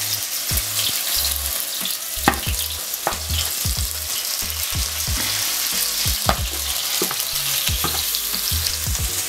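Raw seasoned chicken pieces sizzling in hot oil in an enamelled pan as they go in and are stirred with a wooden spoon. The steady frying hiss carries scattered clicks and knocks throughout.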